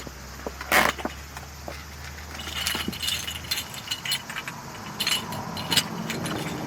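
A loud knock about a second in, then a run of light metallic clinks and clatters, like small hard objects being handled and set down.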